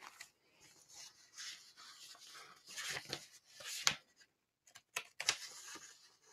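Paper rustling as pages are handled, with a few sharper crackles now and then.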